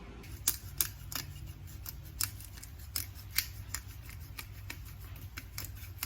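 A series of sharp, irregular clicks, roughly two or three a second, a few of them much louder, over a low steady background hum.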